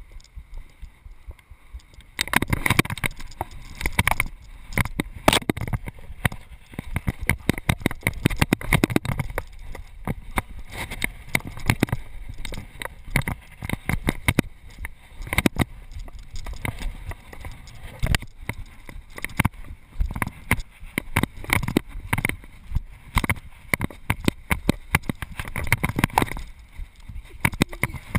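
A freerunner's footsteps, landings and hands striking pavement, roof and ledges, heard close up from a body-worn GoPro: a quick, irregular run of thumps and knocks over a low rumble of wind and body movement, starting about two seconds in.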